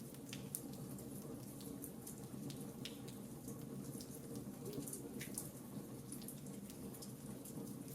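Fireplace fire crackling: irregular sharp pops and snaps, several a second, over a steady low background.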